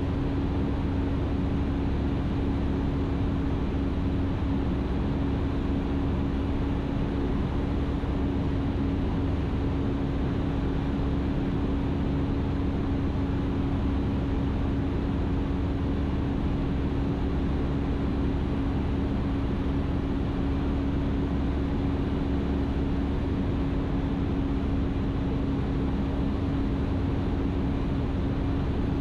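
Ikarus C42 microlight in flight, heard from inside the cockpit: engine and propeller droning steadily at a constant power setting on final approach, one steady hum over a wash of wind noise.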